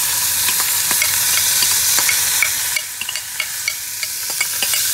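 Hot oil tempering of mustard seeds, chana dal, dried red chili and curry leaves sizzling in a small steel pan, with scattered small ticks through the hiss. The sizzle eases a little about three seconds in as curd rice is tipped into the pan.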